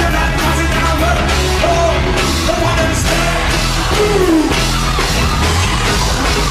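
Live dancehall music played loud, with a heavy bass line and steady drum hits, and a voice singing and shouting over the beat.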